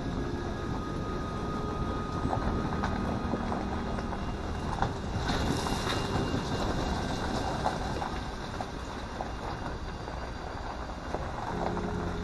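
A vehicle driving on a rough back road: steady rumble of engine and tyres, with scattered knocks and rattles.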